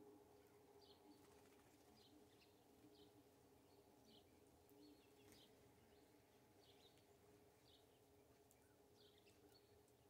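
Faint, short chirps of small songbirds, about one a second, over a low steady hum.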